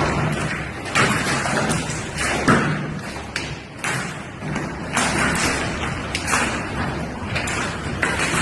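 Heavy hail pelting hard surfaces: a dense, continuous clatter of hailstones, with louder thuds from bigger stones now and then.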